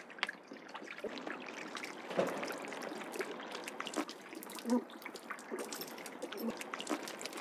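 Water trickling and splashing as it is poured from a plastic bottle into an open mouth and over the face, with small wet clicks and gurgles.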